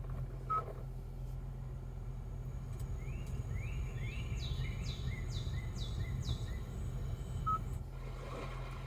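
Recorded nature ambience from Kia's Sounds of Nature infotainment feature playing in the car, with a bird singing a run of about six quick repeated chirps in the middle, over a steady low cabin hum. A short high tone sounds once near the start and again near the end.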